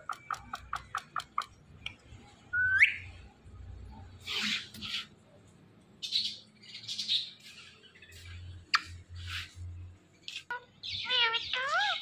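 Indian ringneck parakeets calling. A quick run of short chirps opens it, then a single rising whistle, a few harsh, noisy calls, and swooping calls near the end.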